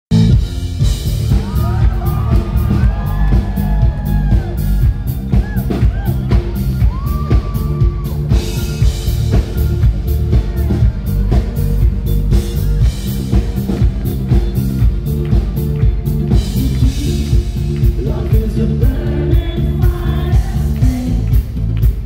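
Live pop band playing loudly, with a steady beat and heavy bass, and a voice gliding up and down over it in the first several seconds.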